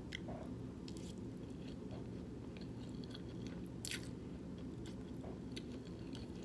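Close-up chewing and mouth sounds of a person eating spaghetti and meatballs: scattered soft wet clicks, with a louder one about four seconds in, over a steady low background hum.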